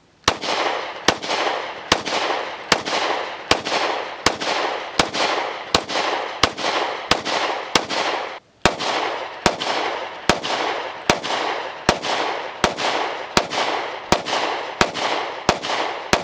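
Glock 29 10mm compact pistol firing .40 S&W rounds, one shot about every three-quarters of a second, each followed by a ringing echo. There is a short break about halfway through.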